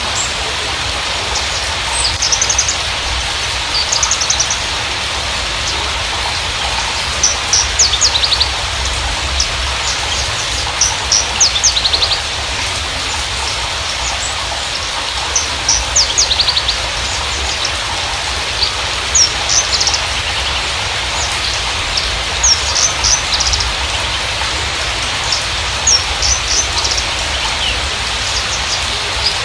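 Horsfield's bushlark (Javan bushlark, Mirafra javanica parva) singing in short, rapid bursts of high chirps and trills every second or two, over a steady rain-like hiss.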